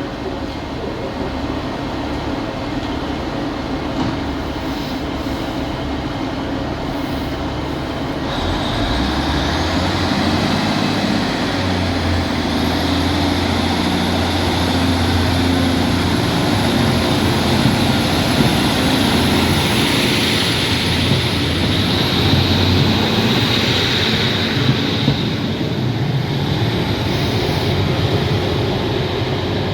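Train running on the rails, a steady rumble throughout. A low drone strengthens about eight seconds in, and a thin high whine runs through the middle.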